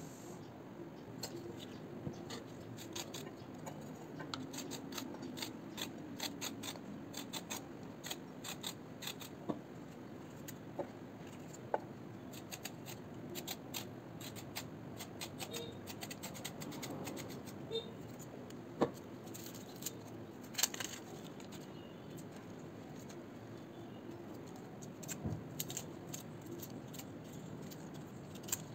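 Quick, irregular scraping and clicking strokes of a small knife peeling vegetables, a carrot and then an onion's papery skin, with a few sharper knocks now and then.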